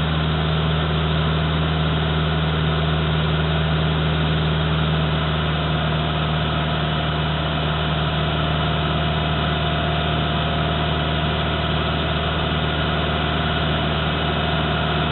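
Iseki TG5470 tractor's diesel engine idling steadily, with no change in revs.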